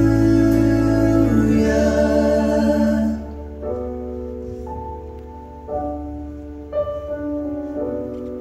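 Church worship music with singing and keyboard: a full arrangement for about three seconds, then it drops to soft held keyboard chords that change about once a second.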